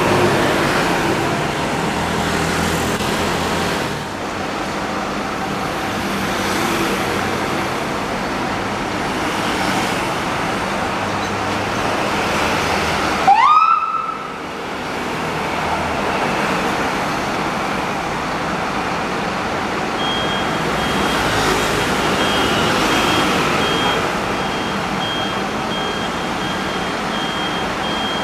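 Fire engine running in a station bay over steady traffic noise. About halfway through comes a short rising tone, and from about two-thirds of the way in a high electronic beep repeats rapidly and keeps going.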